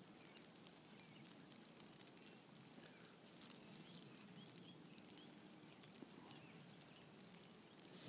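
Near silence: faint outdoor ambience in falling snow, with a few faint bird chirps in the middle.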